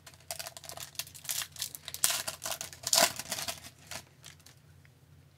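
Foil wrapper of an Upper Deck hockey card pack torn open and crinkled by hand as the cards are pulled out. The crackling starts just after the start, is loudest about two to three seconds in, and dies away after about four seconds.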